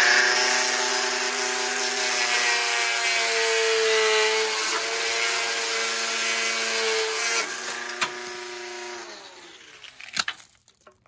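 Handheld power tool running at a steady pitch and grinding down the depth transducer's spacer, tapering it into a wedge. It eases off about seven seconds in, then spins down and stops about ten seconds in.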